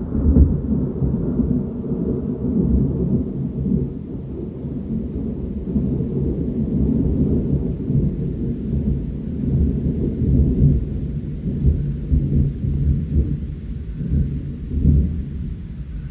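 Thunder rolling in a long, continuous low rumble that swells and fades, with rain falling under it.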